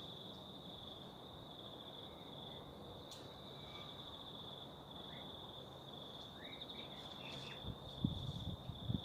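A steady, high insect trill, finely pulsing and unbroken throughout, faint. A few short faint chirps are heard in the second half, and a few soft low thumps come near the end.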